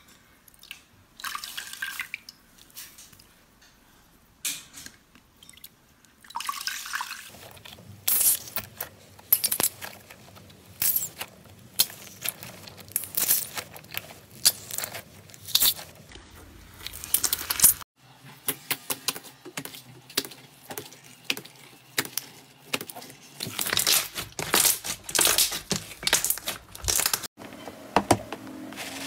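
Slime squeezed and pressed by hand: wet squishing with quick runs of sharp pops and crackles. The sound changes abruptly about 7, 18 and 27 seconds in.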